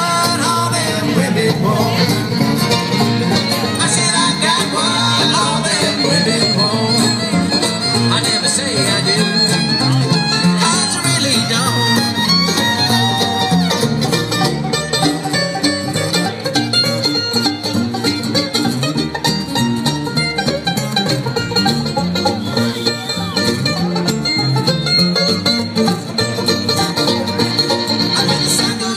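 Live bluegrass band playing an instrumental break without vocals: fiddle, banjo and acoustic guitar over a steady rhythm.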